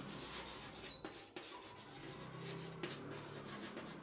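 Chalk writing on a chalkboard: a run of short scratching, rubbing strokes with a few light taps of the chalk against the board.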